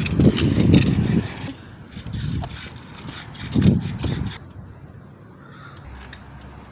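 Kick scooter's small wheels rolling over a concrete sidewalk, a low rumble with clicks. It is loud for about the first second, swells twice more, and dies away a little over four seconds in.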